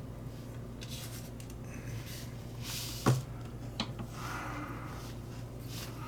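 Small parts being handled at a workbench: a sharp click about three seconds in and a smaller one shortly after, over a steady low hum and breathing close to the microphone.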